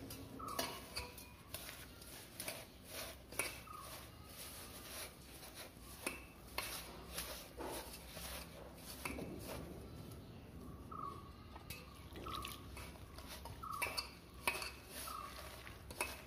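Hand mixing sliced onions and flour in a stainless steel bowl: soft rustling and squishing with frequent irregular clinks and knocks against the bowl, several of which ring briefly.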